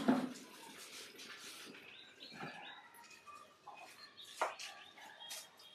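Baby monkey suckling milk from a baby bottle, with soft sucking noises and a few short, faint high squeaks.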